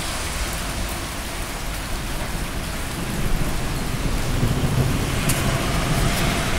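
Heavy rain falling steadily, with a low thunder rumble that builds from about three seconds in and grows louder toward the end.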